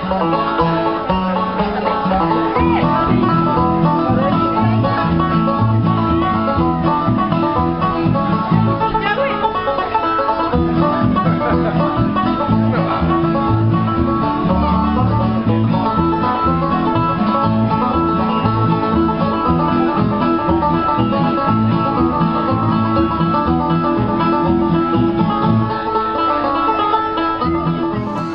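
Bluegrass band playing live on banjo, acoustic guitars and double bass.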